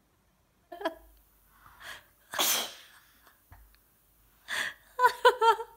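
A child sneezing once, hard, about two and a half seconds in, after a couple of short catching breaths. The sneeze is set off by kalanchoe juice dropped into the nose. Short voiced sounds follow near the end.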